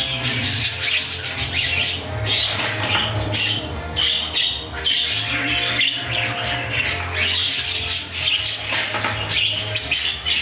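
Budgerigars chattering and squawking in quick, busy bursts, over music.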